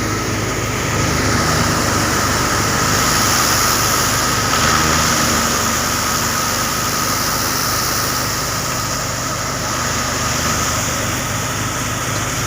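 A tractor engine running steadily at a constant speed, with a steady whine and hiss above it.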